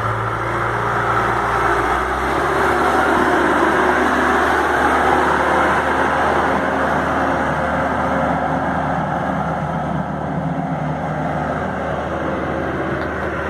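John Deere 310S loader backhoe's diesel engine running steadily, a little louder for a few seconds from about two seconds in.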